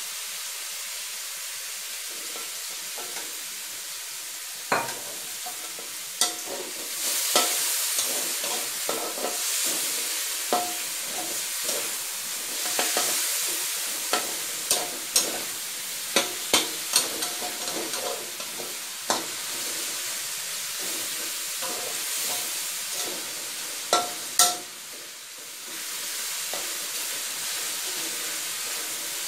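Pork belly cubes sizzling in a wok in their rendered fat and sweet soy sauce, stirred with a metal spatula that scrapes and clicks against the wok many times. The loudest clicks come near the end.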